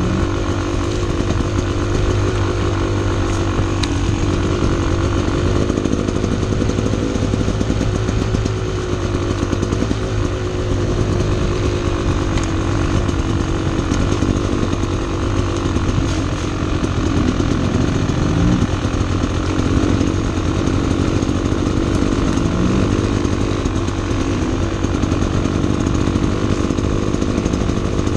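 Two-stroke enduro dirt bike engine running steadily under way at a fairly constant throttle, with a buzzy, even engine note.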